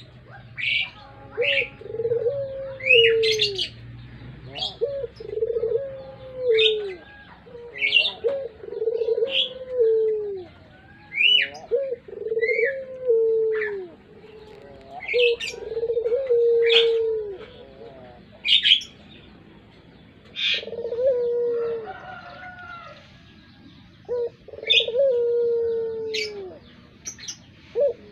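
Puter pelung turtle dove cooing over and over, drawn-out coos that drop in pitch at the end, about one a second with a few short breaks. Short, sharp high chirps from a small bird sound between the coos.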